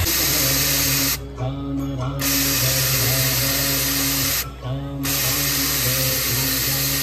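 Stage smoke jets hissing loudly, cutting out suddenly twice and starting again, over music with long held notes.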